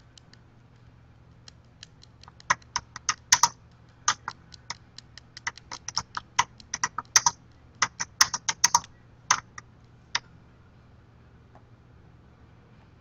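Typing on a computer keyboard: a quick, uneven run of keystrokes that stops about ten seconds in.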